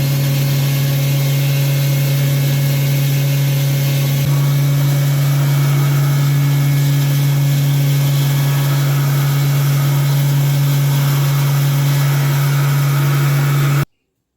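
Disk mill running steadily while grinding coarse rice bran, a loud even machine drone with a strong low hum; it grows a little louder about four seconds in and cuts off suddenly near the end.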